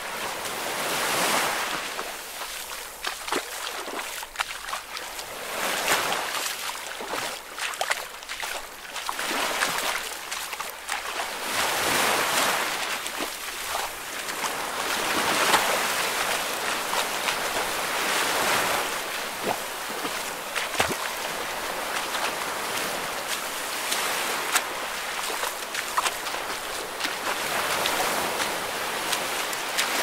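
Ocean surf: waves washing in and drawing back in uneven swells every few seconds, with a faint fizzing crackle of foam.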